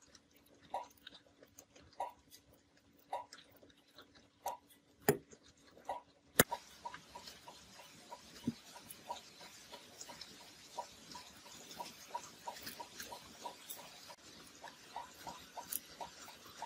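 Scissors snipping through the stiff corrugated fabric spider of a speaker, one cut about every second. Near the middle comes a sharp click, then light, irregular clicks and taps as small parts are handled inside the metal speaker frame and magnet.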